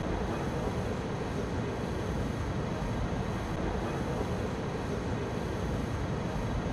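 A steady, unchanging rumble with a hiss above it, of the kind a vehicle in motion makes.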